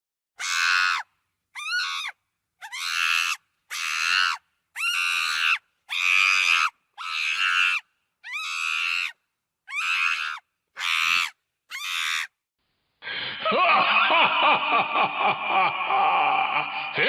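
A string of about eleven short human screams, each under a second, with brief silences between them. About 13 seconds in, a continuous stretch of wailing and screaming takes over.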